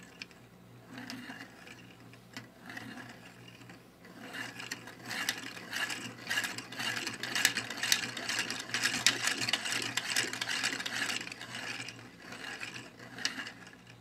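3D-printed plastic rotary-to-elliptical mechanism turned by hand: plastic wheels and pin sliding in oval yoke slots, a dry rattly clicking and rubbing of plastic on plastic. Faint at first, it gets louder from about four seconds in and eases off near the end.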